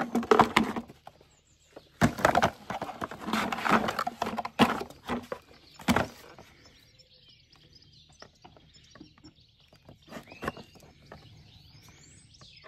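Chlorine tablets rattling and clattering inside a plastic tub as it is shaken and tilted, in several loud bursts over the first six seconds. It then goes quiet apart from small clicks, with a bird chirping twice near the end.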